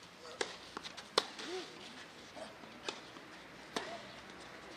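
Tennis ball being hit by racket and bouncing on a clay court: a handful of sharp pops spread through the rally, the loudest about a second in.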